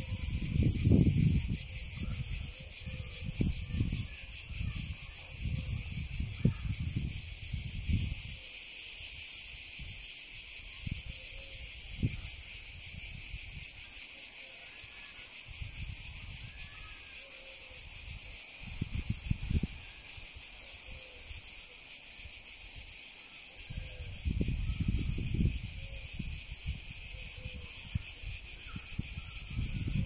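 A chorus of cicadas buzzing: a continuous, even, high-pitched shrill. Irregular low rumbles on the microphone come and go beneath it, loudest about a second in and again near the end.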